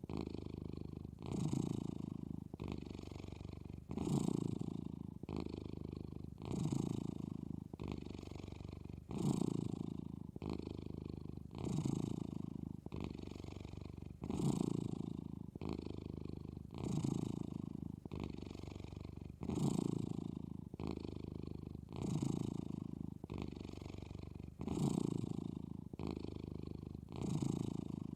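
Domestic cat snoring while asleep, a continuous sound that swells and fades with each breath about every two and a half seconds.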